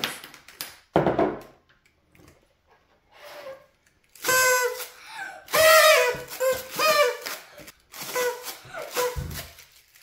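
Small toy horns blown in toots, each holding a reedy tone near one pitch with wavering overtones above it. The toots come in a group about four seconds in, a longer set around six seconds, and more around eight to nine seconds. There is a single clack about a second in.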